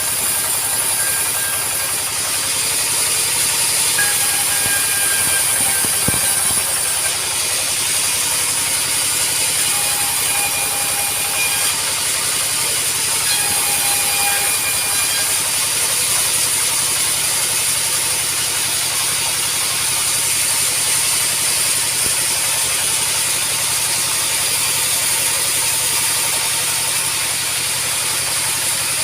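Sawmill machinery running steadily while cutting acacia timber: a continuous, even mechanical noise with a strong high hiss.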